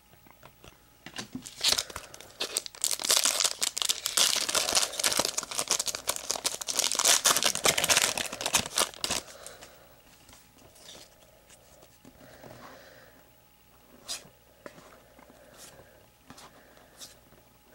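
A trading-card pack wrapper being torn open and crinkled: dense crackling for several seconds, then quieter, with a few faint taps as the cards are handled near the end.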